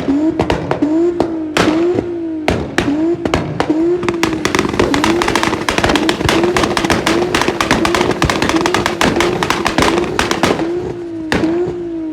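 Turbocharged VW Polo 86c 1.3 8-valve four-cylinder held at high revs on its launch-control/antilag limiter. The engine pitch bounces up and down about twice a second while the exhaust crackles and bangs rapidly, thickest in the middle.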